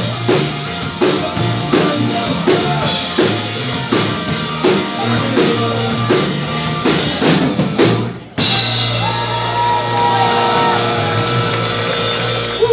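Live rock-and-roll band playing, drums keeping an even beat about twice a second. About eight seconds in the beat stops and a held chord rings out.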